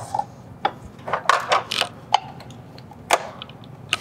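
Scattered light clicks and knocks of small engine parts and tools being handled on a workbench, a few close together about a second in, then single ones spread out.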